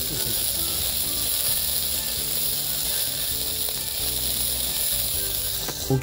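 Sausages sizzling on a wire grill over glowing charcoal: a steady hiss of spitting fat.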